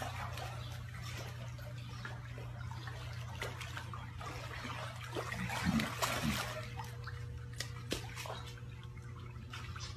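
Swimming-pool water splashing and lapping as a young lion swims through it, over a steady low hum. A brief low sound stands out just after the middle.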